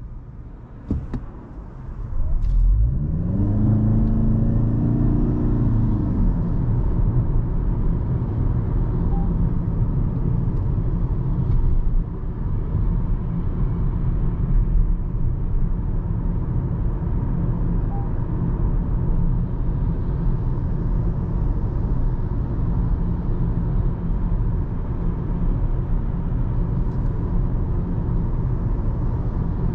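Toyota Camry hybrid's 2.5-litre four-cylinder engine cutting in as the car pulls away: two clicks, then a rising and falling engine note over a few seconds that settles into a steady low rumble of engine and road noise while driving.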